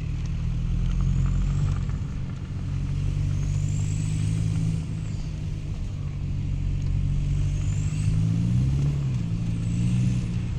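Saab 9-5 Turbo's engine pulling under boost, with a high turbo spool whistle that rises and falls three times. The loud spool sound comes from an exhaust leak at a loose downpipe.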